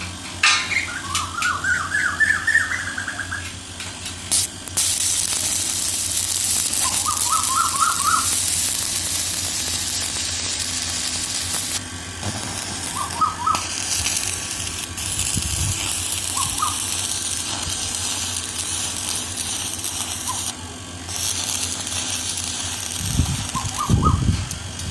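Electric arc welding hissing and crackling, starting about four seconds in and running with two short breaks. Over it, a bird calls several times in quick runs of rising chirps.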